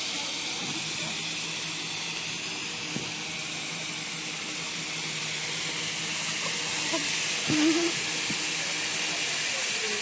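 Several handheld red distress flares burning together with a steady hiss.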